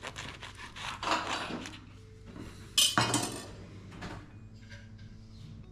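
A chef's knife cutting down through a chocolate-glazed muffin onto a wooden cutting board, with crackly scraping in the first second and a half. About three seconds in comes a sharp metallic clatter, the loudest sound, as the knife is set down.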